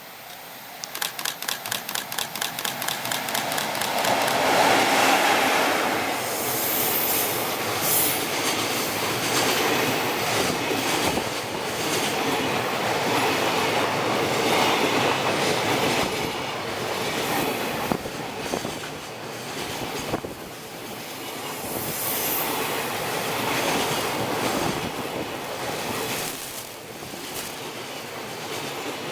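Freight train hauled by an EF65 electric locomotive passing at speed: a rapid, even run of wheel clicks over the rail joints as it arrives, getting louder, then a long steady rumble and clatter of the wagons going by, swelling and easing off.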